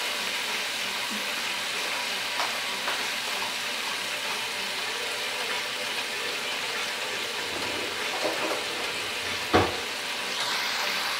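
Seasoned beef roast searing in hot oil and butter over high heat: a steady sizzle as the meat browns, with a single louder pop about nine and a half seconds in.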